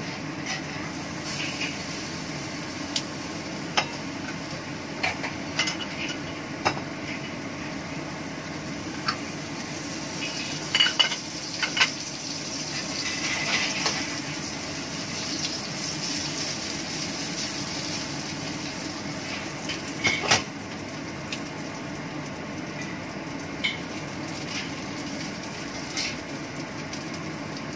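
A cooking utensil clinking and scraping against a pan on the stove, in sharp, irregular clinks that bunch up about eleven seconds in and again about twenty seconds in, over a steady low background hum.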